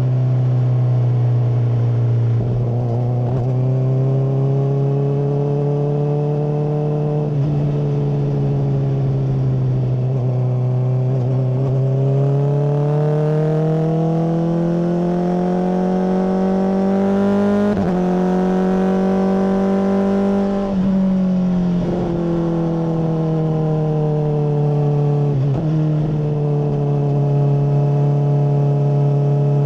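Honda CBR600RR inline-four engine through a MIVV full exhaust, running under way. The note holds steady, climbs in pitch through the middle with several short breaks, then drops back to a steady lower pitch.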